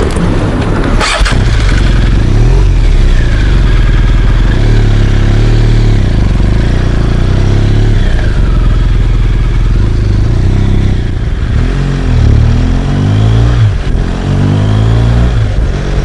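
BMW R1200GS boxer-twin motorcycle engine under way, its pitch rising and falling several times as the bike accelerates and changes gear. There is a short sharp clack about a second in.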